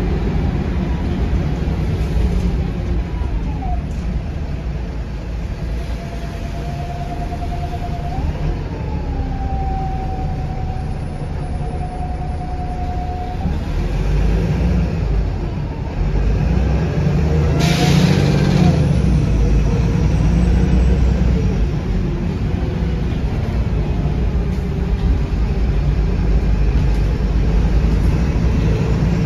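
VDL SB200 single-deck bus's diesel engine running under way, heard from inside the saloon: a steady low drone with a whine that glides up and holds for several seconds in the first half. A sharp knock a little past the middle, after which the engine note grows louder.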